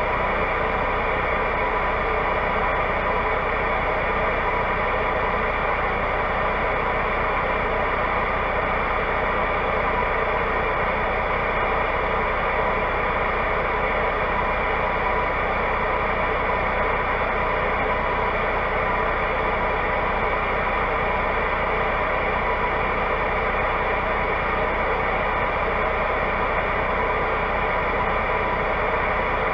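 Semi truck's diesel engine idling while parked, heard inside the cab: a steady, even hum and hiss with a few held tones.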